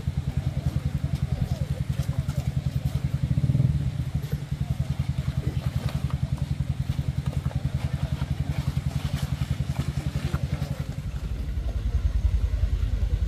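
Small motorcycle engine running with a rapid pulsing exhaust beat under load as the bike is pushed up a rocky, muddy slope, surging briefly about three and a half seconds in. Near the end the sound gives way to a deeper low rumble.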